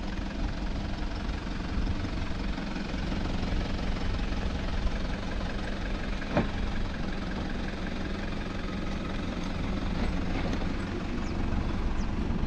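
Four-wheel drive's engine running steadily at low revs as it crawls along towing a caravan over rough ground, with a single sharp click about six seconds in.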